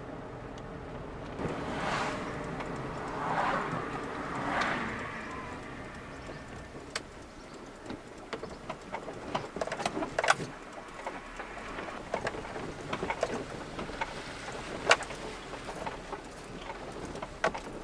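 Small van's engine running as it is driven, heard from inside the cab, with a few swells in engine pitch in the first five seconds. After that the cab knocks and rattles over a rough dirt road.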